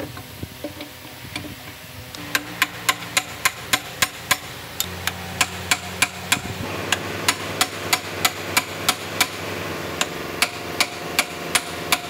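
Hammer blows at a steady rhythm of about three a second, starting about two seconds in after a few lighter taps, driving a gear shaft assembly into a loader gearbox housing.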